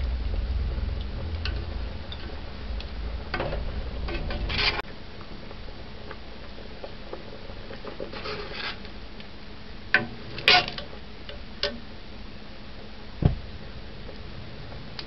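A metal ladle stirring stew in a pressure-cooker pot, with scattered scrapes and clinks against the pot's side. The sharpest come about ten seconds in, and a dull knock follows near thirteen seconds. A low rumble under the first few seconds cuts off suddenly about five seconds in.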